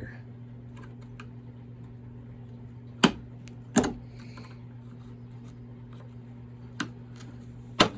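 Four sharp clicks and knocks of a screwdriver and parts handled while taking the loop handle off a chainsaw, two about three to four seconds in and two near the end, over a steady low electrical hum.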